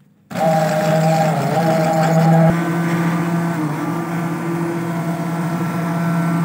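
Handheld stick blender running steadily with its blade submerged, blending peach pieces with water and sugar into juice in a glass jug. The motor sound drops out for a moment at the very start, then carries on at an even pitch.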